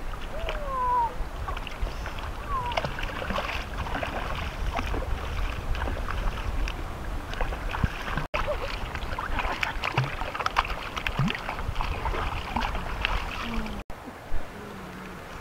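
Water splashing and sloshing as puppies are dipped and washed in a shallow pond. A puppy whimpers in short gliding cries near the start.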